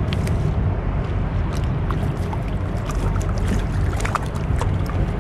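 Pedal-drive kayak under way on the ocean: a steady rush of water and wind against the hull and microphone, heaviest in the low range, with scattered small splashes and ticks.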